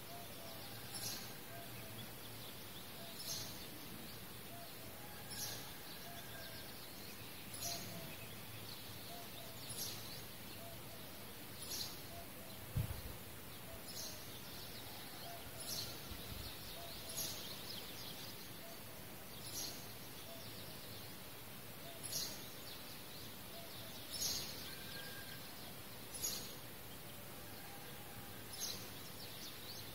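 Sewing thread being drawn through cloth by hand, a quiet swish about every two seconds as each stitch is pulled tight, with one dull thump about halfway through.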